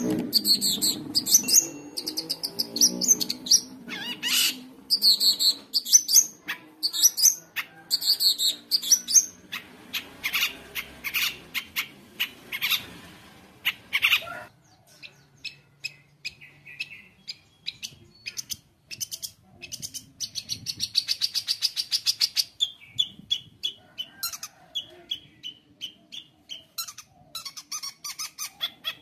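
Long-tailed shrike (cendet) singing nonstop: a rapid, varied string of chirps, sweeping notes and trills packed with mimicked calls of other birds. A fast buzzy trill comes about two-thirds of the way through.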